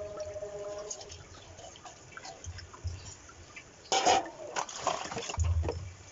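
Water running and splashing in a kitchen sink, with scattered clicks, a sudden loud burst about four seconds in and low thuds near the end.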